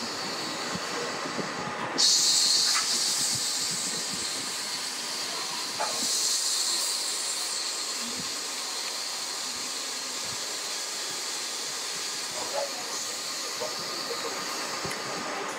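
Steady hissing noise, with a louder hiss that starts suddenly about two seconds in and lasts about a second, and another swell about six seconds in.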